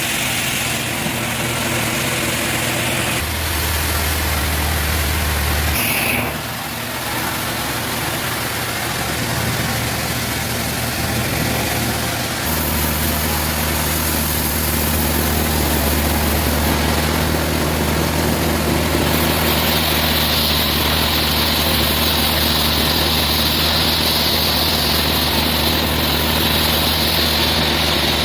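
Sawmill machinery running steadily with a low engine-like hum. The sound changes abruptly several times.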